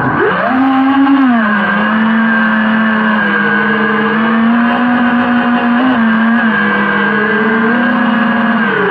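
FPV quadcopter's motors and propellers whining in flight. The pitch jumps up right at the start, then holds fairly steady, dipping and rising a few times with the throttle.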